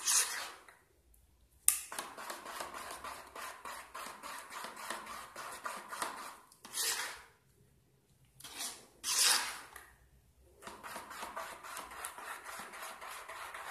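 Plastic spoon stirring thickening hand wash gel in a plastic bowl: runs of quick, even scraping strokes, several a second, broken by short pauses and a couple of louder single swishes.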